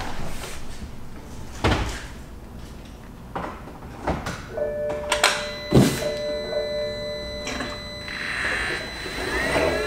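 Knocks and clicks from a man settling into a BMW 135i's driver's seat, then from about halfway steady electronic tones from the car, with a rising whine starting near the end.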